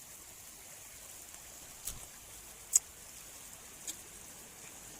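Faint steady hiss of flowing rainwater, with three short sharp clicks, the loudest a little past the middle.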